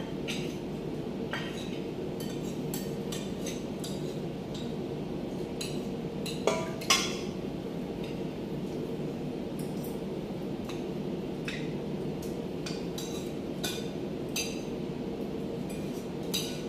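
Cutlery clinking against plates as two people eat: scattered light clinks, with two louder ones close together about halfway through, over a steady low hum.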